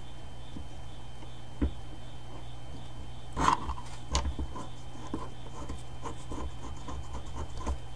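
Small metal parts of a motorcycle brake caliper clicking and knocking as they are fitted by hand: a knock about one and a half seconds in, a louder clatter about halfway, then a run of light ticks. A steady low hum runs underneath.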